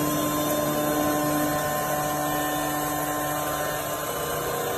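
CNC woodworking machine running: a steady motor hum and whine with a hiss over it.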